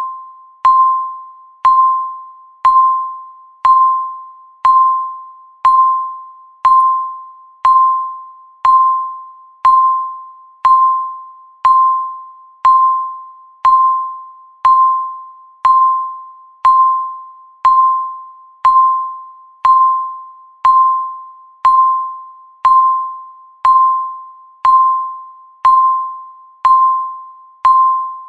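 Countdown timer's tick sound: a pitched tick at one steady pitch, once a second, each dying away before the next.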